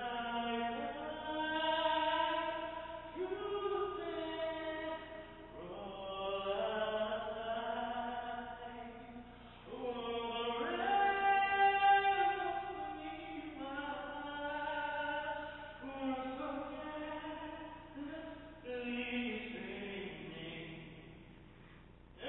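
A person singing the national anthem a cappella in a stairwell, with long held notes that slide from pitch to pitch.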